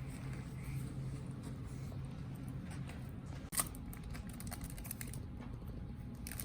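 Low room noise with a steady hum at first, faint small handling sounds, and one sharp click about three and a half seconds in.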